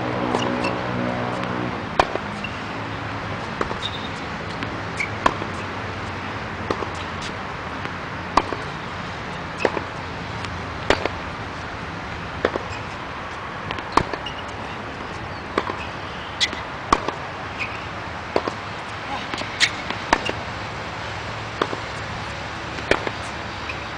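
Tennis ball hits during a hard-court rally: sharp racket strikes and bounces about every second or so, over steady outdoor background noise, with a low hum that fades out about two seconds in.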